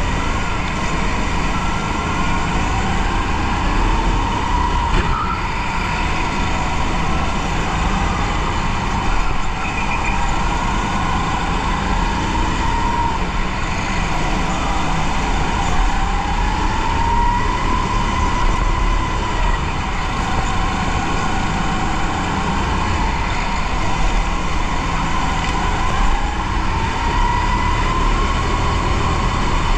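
Kart running at racing speed, heard from its onboard camera: a steady drive whine that rises and falls in pitch as the kart speeds up along the straights and slows for the corners, over a heavy rumble.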